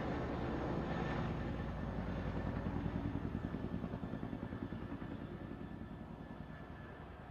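Helicopter flying, its rotor blades beating in a fast chop over engine noise. The sound fades steadily from about halfway through, as the helicopter moves away.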